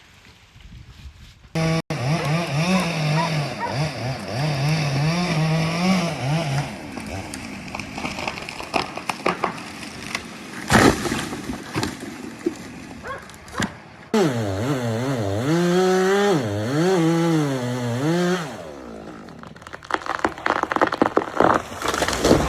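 Two-stroke chainsaw running at high throttle, its pitch rising and dropping as it cuts and bogs in the wood. There is a sharp crack about eleven seconds in, and crackling and snapping near the end.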